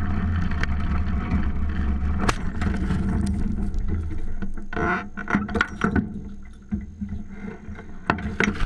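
A homemade roll-cage buggy's engine drones steadily while the frame rattles, with a sharp knock about two seconds in. The buggy rolls over: a run of knocks and clattering comes about five to six seconds in, then the drone drops away.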